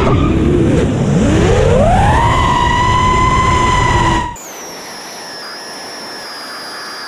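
FPV quadcopter's motors and propellers whining over rushing wind, the pitch rising about a second in and then holding. About four seconds in the sound drops abruptly to a quieter, thinner high whine.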